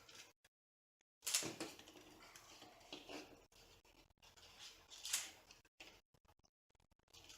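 Rustling and light clicks of wiring being handled and tucked along a 3D printer's frame, with a few sharper knocks at irregular moments.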